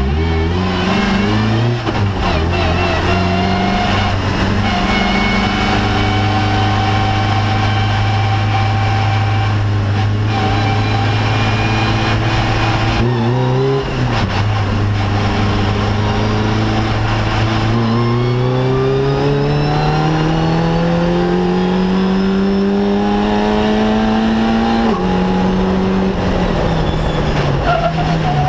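Fun Cup race car's engine heard from inside the cockpit, holding a steady low engine speed for about half the time. It then rises steadily in pitch as the car accelerates, and drops at an upshift near the end.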